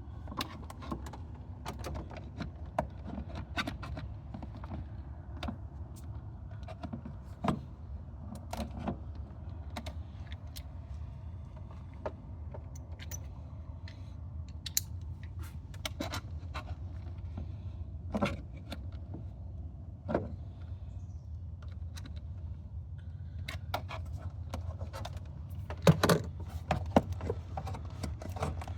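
Irregular plastic clicks, knocks and rattles from a 2008 Chevy Aveo's engine air filter housing and intake duct being pushed back, lifted and worked loose by hand, with a cluster of louder knocks near the end, over a steady low hum.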